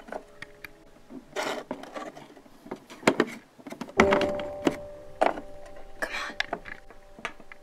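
Scattered soft knocks and thuds from a small plastic toy figurine being handled and set down on a toy set, the loudest about four seconds in, over a faint low steady tone.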